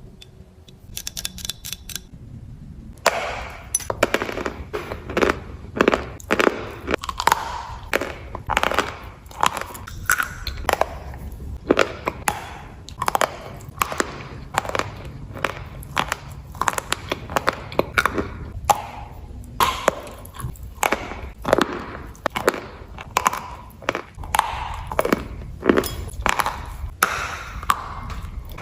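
Close-miked crunching of chalk being bitten and chewed: sharp, irregular crunches about one or two a second, beginning a few seconds in after a few faint clicks, over a low steady hum.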